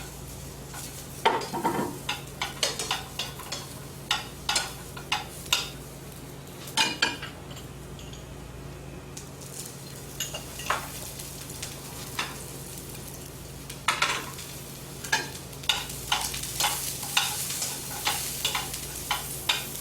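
Vegetables sizzling in oil in a pan over medium heat as they are stir-fried, with repeated scrapes and clinks of a utensil against the pan. The sizzle grows louder over the last few seconds.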